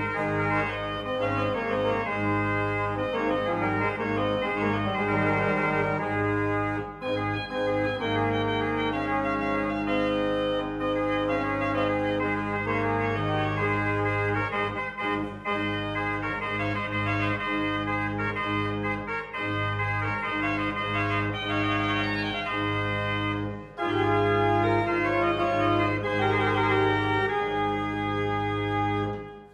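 Organ music: sustained chords over a held bass note with a moving upper line, briefly dipping about 24 seconds in and cutting off at the very end.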